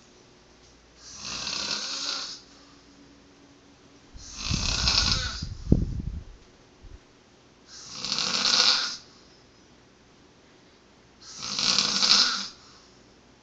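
A man snoring: four snores at an even pace about three and a half seconds apart, the second with a deeper, low rattle.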